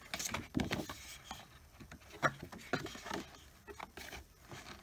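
Paper brochure being handled and flipped over an open cardboard box, with irregular rustles, scrapes and light taps.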